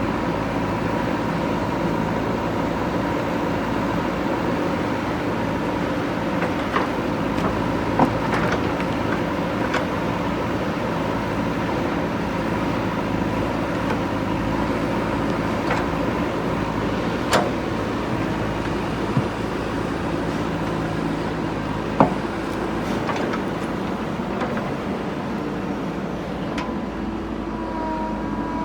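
JCB 3DX backhoe loader's diesel engine running steadily, with a few sharp knocks scattered through as it digs out tree roots.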